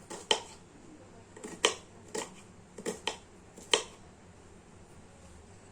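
Kitchen knife chopping vegetables on a cutting board: about six sharp, uneven knocks over four seconds, then the chopping stops.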